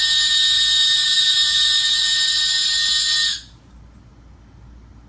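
A loud, steady alarm-like buzzing tone with several pitches sounding together, stopping about three and a half seconds in.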